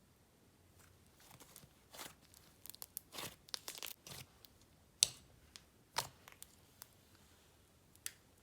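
Slime being handled, likely icing slime with crunchy Java chunk mix-ins: a run of soft crinkly crackles, then a few sharp separate clicks or pops.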